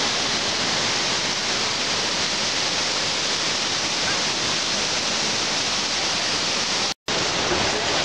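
Datanla Waterfall's water rushing in a steady hiss, with a brief dropout about seven seconds in.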